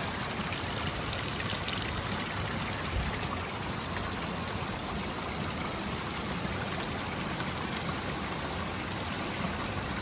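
A river flowing: a steady rush of water.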